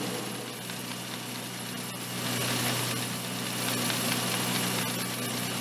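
Machinery running steadily: a low, even hum over a hiss, a little louder from about two seconds in.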